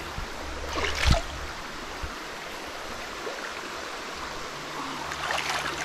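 Creek water running steadily over rocks, with a short thump about a second in.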